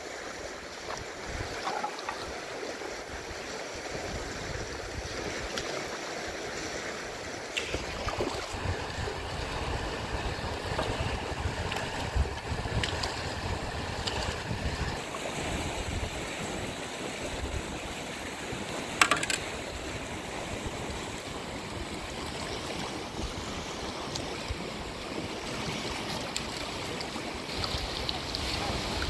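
Fast river water rushing steadily over stones, with wind buffeting the microphone. A few short sharp knocks stand out, the loudest about two-thirds of the way through.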